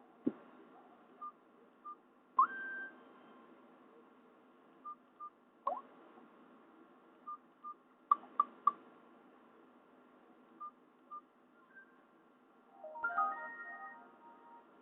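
A Nokia Asha 203 ringtone playing from a Nokia 216's small loudspeaker: sparse electronic blips, with pairs of short high beeps, two rising chirps, a quick triple tick and a falling chirp. A brief jumble of tones comes near the end.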